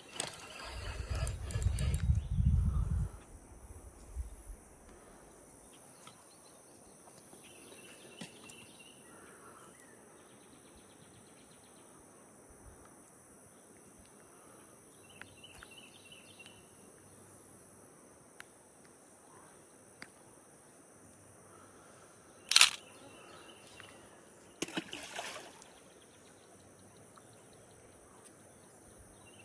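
Quiet outdoor ambience with a steady high insect drone and short pulsed chirps every several seconds. A low rumble on the microphone lasts for the first few seconds, and there is one sharp click about 22 seconds in.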